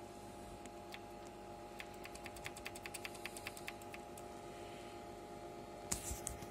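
Keys of an HP 9825B desktop computer's keyboard being typed, a few single clicks and then a quick run of clicks, over a steady hum; a louder knock near the end.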